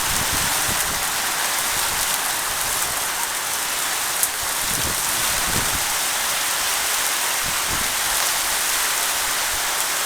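Heavy rain from a thunderstorm pouring down with a steady, even hiss, with one short tick about four seconds in.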